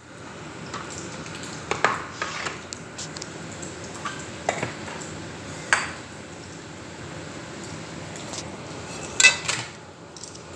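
A metal fork knocking and scraping against a stainless steel pot as potato strips are stirred, giving a handful of sharp clinks at irregular moments, two close together near the end. Underneath is a steady hiss of the potatoes frying.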